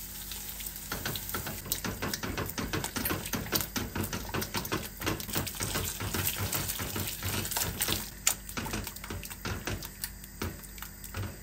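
Water poured in a steady stream into a stainless steel pot of fried mushrooms and flour roux, while a spoon stirs and scrapes against the pot with many irregular clicks and one sharper knock about eight seconds in. It is the stage where water is added to the roux to make mushroom soup.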